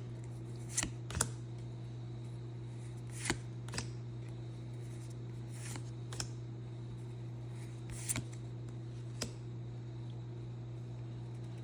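Pokémon trading cards being slid and flipped one at a time, short papery swipes every second or so, over a steady low hum.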